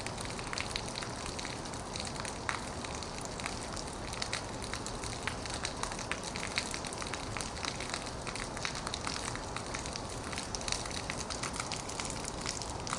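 Heavy rain falling on an old metal roof: a steady hiss dense with sharp, crackling impacts of individual drops.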